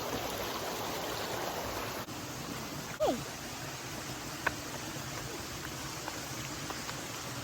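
Stream water running steadily over rocks. A brief falling squeak sounds about three seconds in, and a faint click a little later.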